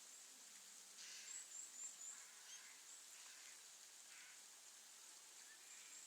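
Faint wild bird calls in forest. A quick run of four or five short high chirps comes about a second in, followed by a few scattered calls over the next few seconds, over a steady thin high-pitched hum.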